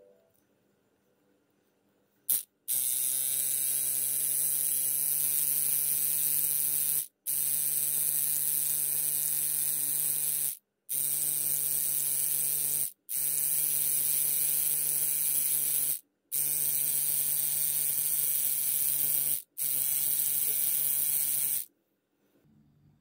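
Homemade tattoo machine built from a small DC motor, buzzing steadily as its needle works into skin: a steady low hum under a strong high hiss. It starts a couple of seconds in, cuts out abruptly for a moment five times, and stops near the end.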